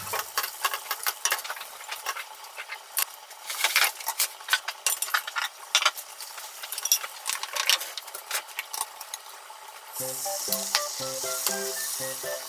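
Beaten egg sizzling in a rectangular tamagoyaki pan as wooden chopsticks stir and fold it, with many sharp clicks of the chopsticks against the pan. Background music comes in about ten seconds in.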